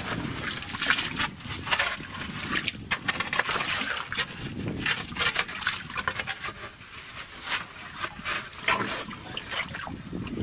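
Wet sloshing and squelching as hands work in muddy water at the bottom of a dug pit: a run of irregular splashes and sharp wet clicks.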